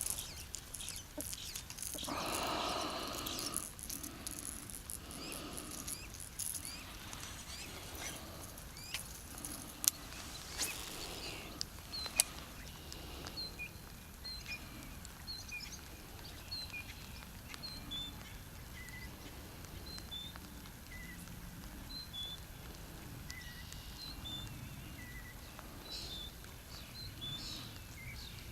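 Birds chirping, short high notes repeated every second or so through the second half, over quiet pond-side ambience. A brief rushing noise comes about two seconds in, and a couple of sharp clicks come around ten and twelve seconds in.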